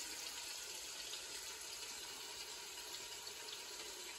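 Bacon frying in a pot, a faint steady sizzle.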